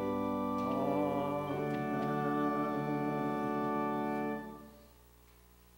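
Organ playing the final held chords of a hymn, changing chord once and then released about four and a half seconds in, leaving faint room tone.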